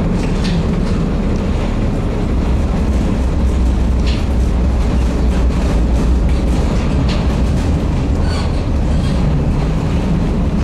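Running noise heard from inside a moving Brussels PCC tram: a steady low rumble of the wheels on the rails, with a few brief high clicks scattered through it.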